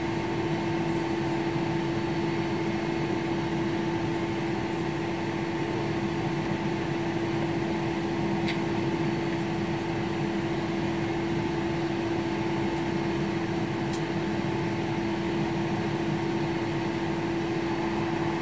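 Airliner cabin noise on the ground with the engines idling: a steady drone with a constant low hum and a fainter higher steady tone, unchanging throughout.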